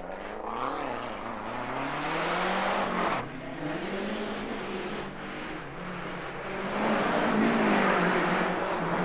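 Rally car engine accelerating hard, its pitch climbing and dropping back at each gear change, growing louder about seven seconds in as it comes closer.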